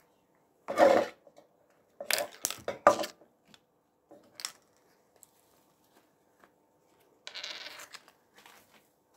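Handling noises from rubber-gloved hands and a plastic dye jar on a stainless steel sink counter: a few irregular bursts of rustling, knocks and a click, with a longer hissy rustle near the end.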